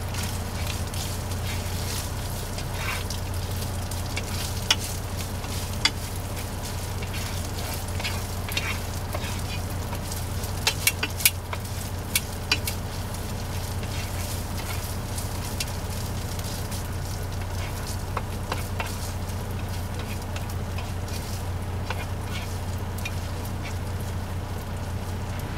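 Chorizo frying in a skillet: a steady sizzle with sharp pops now and then, most of them around eleven to twelve seconds in, over a steady low hum.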